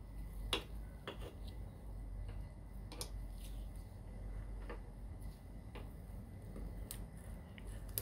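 A few sharp, scattered clicks and taps of small metal parts as a washer and a keyed drive gear are fitted onto a shaft of a Toro mower transmission's pivot arm, with a low steady hum underneath.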